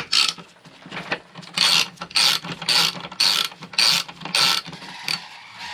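Hand ratchet wrench clicking in about seven quick back-and-forth strokes while driving in a fastener on a tailgate latch.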